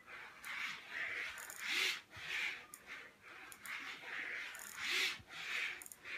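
Pen of a turntable-driven drawing machine scratching across paper, rising and falling in repeating swells as the linkage sweeps the pen back and forth, loudest about every three seconds.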